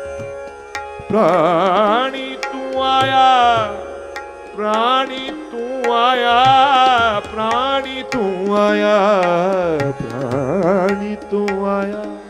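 Shabad kirtan music: a highly ornamented melody with wide wavering pitch, in several phrases over a steady drone, with tabla strokes beneath.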